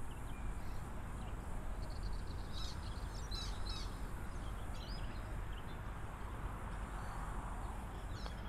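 Birds chirping in short, scattered calls over a steady low outdoor background noise.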